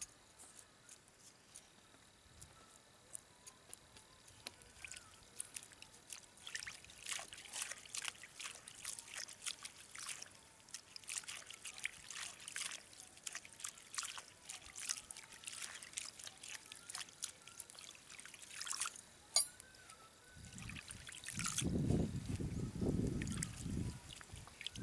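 Hands washing gongura leaves in a pot of water: small splashes, with water trickling and dripping off the lifted handfuls. A louder, deeper sound for a few seconds near the end.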